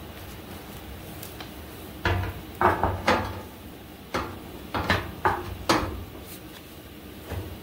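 A steel four-link suspension bracket being fitted by hand against the truck's frame rail: a run of about eight metal clunks and knocks over the middle few seconds.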